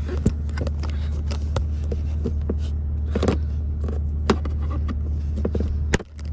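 Flat-blade screwdriver tips clicking, tapping and scraping against the dashboard's plastic as the power outlet is pried back into its housing, with a cluster of scraping about halfway through. A steady low hum runs underneath and briefly cuts out near the end.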